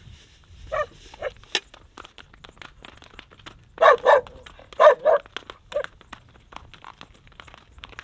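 A dog barking: a couple of single barks, then two quick double barks in the middle and a last one soon after. Under them a horse's hooves walk with light clicking steps on a gravel track.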